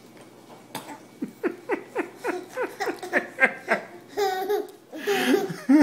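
A baby about one year old laughing: a quick run of short, falling giggles, about four to five a second, then a couple of longer drawn-out laughs near the end.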